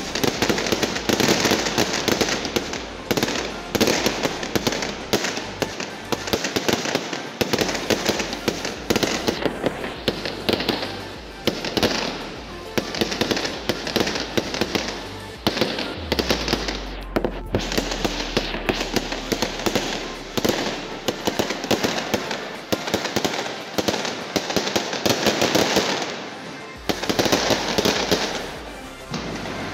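Fireworks display of aerial shells and fountain gerbs: a dense, unbroken barrage of bangs and crackles.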